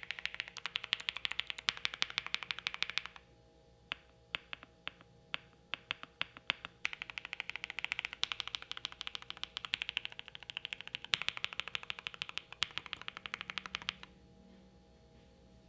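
Fast typing on a foamed gasket-mount mechanical keyboard with lubed Creampaca switches on a polycarbonate plate and GMK keycaps: a quick run of muted, deep keystrokes, slowing to scattered presses for a few seconds, then fast again before stopping about a second and a half before the end.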